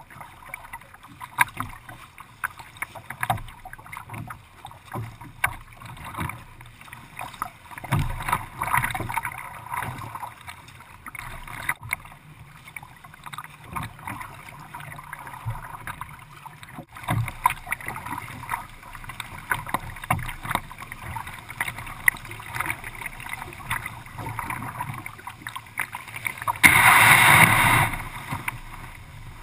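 Water splashing and slapping against a kayak hull next to the microphone as the kayak is paddled, with many small irregular ticks and splashes. Near the end a louder rush of noise lasts about a second.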